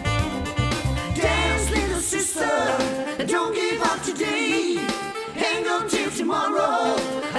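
Pop band music with sung vocals. A steady bass line carries the first two seconds or so; the singing comes in about a second in and holds on as the bass drops back.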